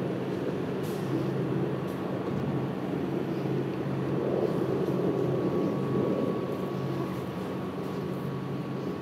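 Boeing AH-64 Apache helicopters approaching in a flyover: a steady rotor and engine drone that grows louder about halfway through, with a thin steady whine coming in.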